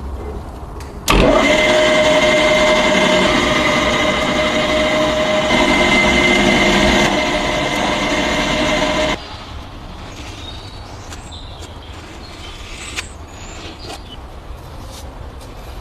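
A motor runs steadily with a held whine, starting abruptly about a second in and cutting off suddenly some eight seconds later, followed by quieter handling noise.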